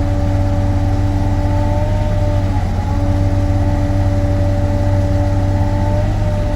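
Sany SY35U mini excavator's diesel engine running steadily under load, with a steady whine over it that dips briefly about two and a half seconds in and again at the end.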